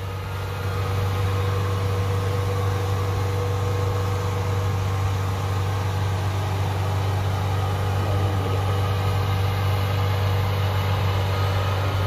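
Kubota DC60 combine harvester's diesel engine running steadily as the machine drives forward on its tracks: a deep, even drone that grows a little louder about half a second in.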